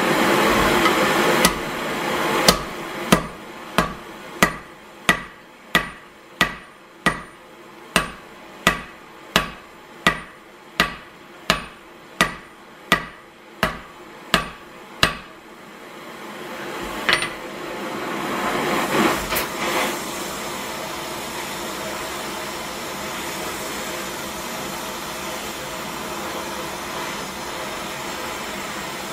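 Hand hammer striking red-hot steel on an anvil: about twenty evenly paced, ringing blows, roughly one and a half a second, that stop about halfway through. Then an oxy-acetylene torch is lit with a click, and its flame hisses steadily.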